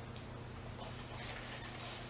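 Paper card rustling and scraping in short scratchy bursts as it is handled in the fingers, starting a little under a second in, over a low steady hum.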